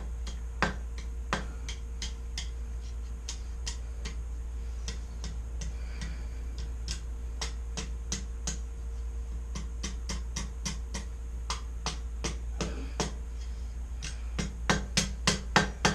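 Hand hammer tapping 1/4-inch square steel bar stock on an anvil, working a pigtail scroll over the anvil edge. Light, quick taps about four a second, with a run of harder blows near the end, over a steady low hum.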